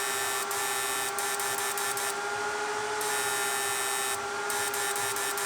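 Homemade 12 V fish-stunner inverter running under the load of a 200-watt bulb: a steady, high-pitched electrical hum from its transformers, together with the whirr of its cooling fans.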